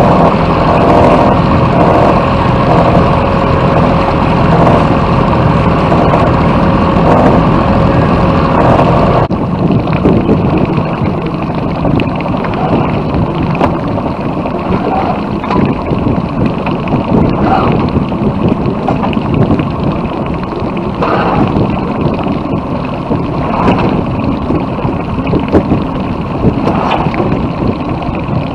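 A boat engine runs steadily under wind and water noise. About a third of the way in its higher note drops away abruptly, leaving a low running note beneath the rush of wind and water.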